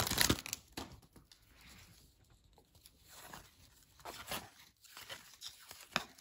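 Paper wrapper of a baseball card pack crinkling as it is torn off, loudest in the first half second, then soft rustling and flicking of the cards as they are thumbed through, with a few sharper card clicks.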